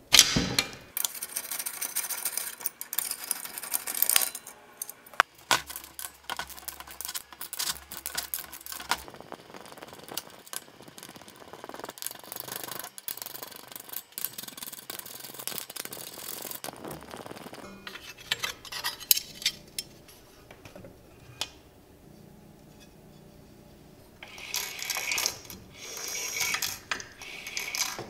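Socket ratchet clicking and metal tool clatter as bolts are loosened and taken out of a small engine, in several separate stretches with short pauses between them.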